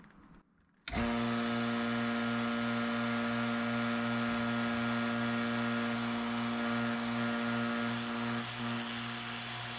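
Freshly rebuilt two-stage rotary vane vacuum pump switched on about a second in and running steadily with an electric motor hum. It runs with both intake caps off, so there is no load on it.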